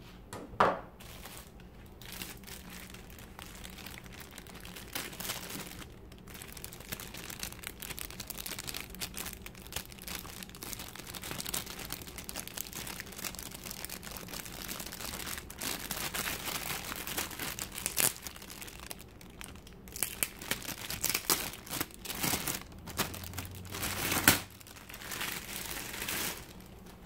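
Thin clear plastic bag crinkling and rustling almost without pause as it is handled and pulled open around a camera body, with a label being peeled from it. A few sharp, louder noises stand out: one just after the start and the loudest about three seconds before the end.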